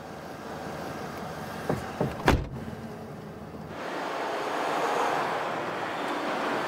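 A car door is shut with a solid thud about two seconds in, after a couple of lighter clicks. Under it runs a steady hum, which gives way to a louder, even noise after about four seconds.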